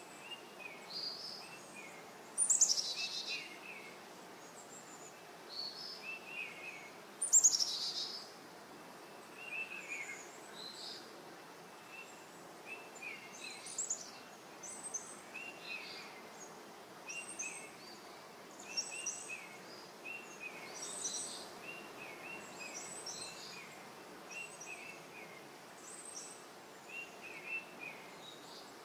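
Several wild birds singing and calling: repeated short chirps throughout, with two louder, fast downward-sweeping songs, about two and a half and seven and a half seconds in. A steady faint outdoor hiss lies underneath.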